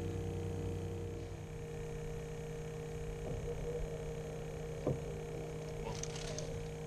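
A steady low hum with a fainter higher tone, broken by two faint knocks about a second and a half apart and a few light clicks near the end.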